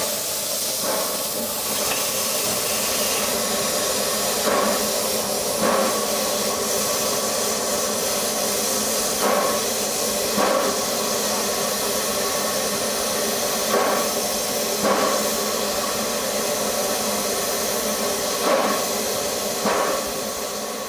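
Baldwin steam locomotive hissing steadily as it vents steam. Every four and a half seconds or so comes a pair of short beats about a second apart.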